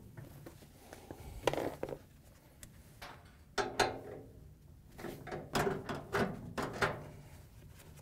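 A 5/16-inch nut driver backing hex-head screws out of the sheet-metal bracket of a dryer's rear roller axle. It makes irregular metallic clicks and scrapes in short clusters, most of them in the second half.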